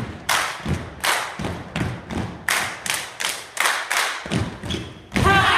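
A group stomping and clapping in unison on a wooden floor, a steady beat of about three strokes a second. Near the end comes a sudden loud group shout.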